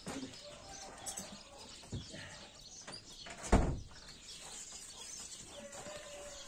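A wooden door banging shut once, a single loud thump about halfway through, over faint chirping.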